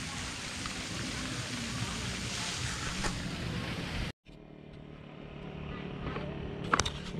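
Steady outdoor background noise, an even rushing hiss with faint distant voices, that cuts off abruptly about four seconds in; after it, a quieter background with faint voices and a few sharp clicks near the end.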